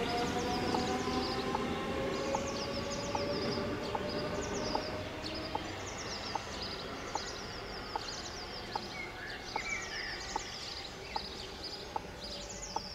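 An electric train moving away, its motor whine rising slowly in pitch and fading out over the first few seconds. A bird sings repeated short high chirps throughout, and faint ticks recur about once a second.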